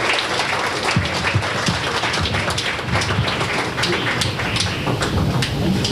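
A small audience applauding, with many quick, irregular claps.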